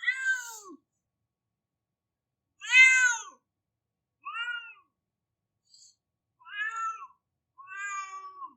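A domestic cat crying: five drawn-out meows with gaps of silence between them, each call arching up and falling in pitch, the second one the loudest.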